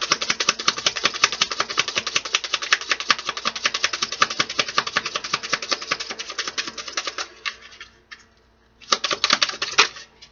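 Tarot cards being shuffled by hand: a fast, dense run of card flicks for about seven seconds that thins out, then a second shorter burst of shuffling near the end.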